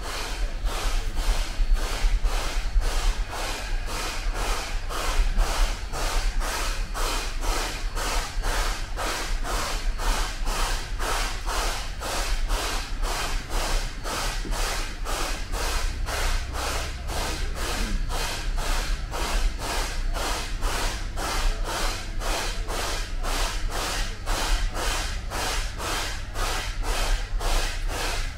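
Narrow-gauge steam locomotive working steadily under way: an even beat of exhaust chuffs, about two a second, over a low rumble.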